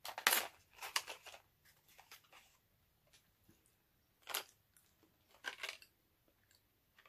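A small cardboard box of Chewy Lemonhead candies being torn open and handled: a few short tearing and crackling noises in the first second, then single scrapes or rattles around four and five and a half seconds in.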